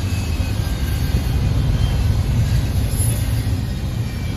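Freight train rolling slowly past on the nearest track: a steady, loud low rumble.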